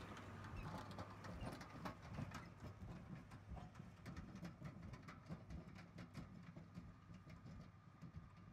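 Landpac heart-shaped impact roller drums turning over the soil behind a John Deere four-wheel-drive tractor: irregular knocks and clanks, over the tractor engine's steady low drone.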